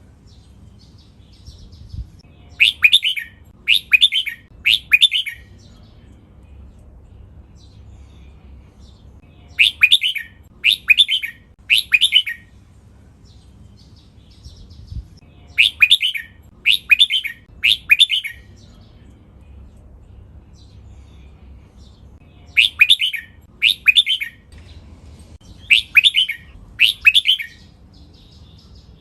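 Red-whiskered bulbul singing: short, clear whistled phrases in quick runs of three, the last runs of two, repeated every six or seven seconds.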